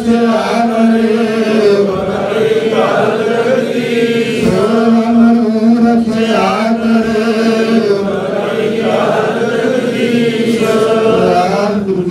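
Sikh congregation chanting together in unison over a steady held tone, in repeated phrases about every two seconds.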